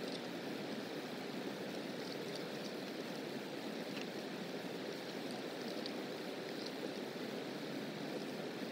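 Steady rushing of flowing water, even in level, with a few faint high ticks scattered through it.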